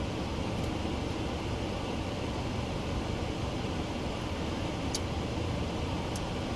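Steady hum and hiss of a car's engine idling and its air-conditioning fan blowing, heard from inside the cabin, with a couple of faint clicks near the end.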